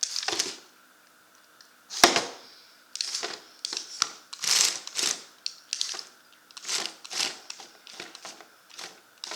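Lego Technic robot's plastic parts clattering and knocking in a series of short bursts as it drives and tumbles, the loudest knock about two seconds in, over a faint steady whine.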